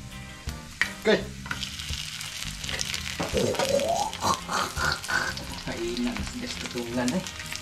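Dried danggit fish sizzling as it fries in hot oil in a nonstick pan, with a metal spatula tapping and scraping the pan as it turns the pieces. A few sharp taps come about a second in, and the sizzle grows louder after that.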